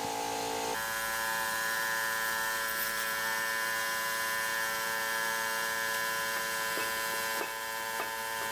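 Steady electric hum made of several held tones, shifting in pitch just under a second in, with a few faint clicks near the end.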